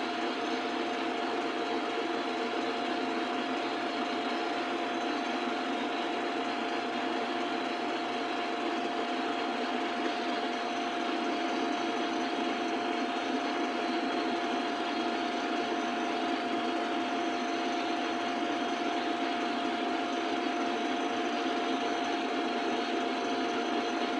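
A motor running steadily, a constant whir with a single steady hum.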